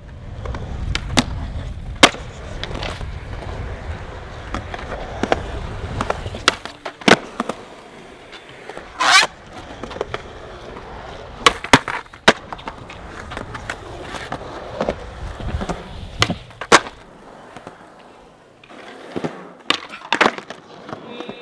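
Skateboard wheels rolling on smooth concrete with a low rumble, broken again and again by sharp clacks of the board popping and landing. About nine seconds in there is a brief scrape, and the rumble falls away for a while in the middle.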